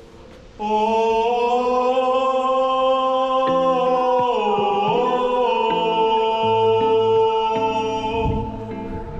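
Background music: a long held note that starts about half a second in, slides down and back up near the middle, over a bass line that steps between notes.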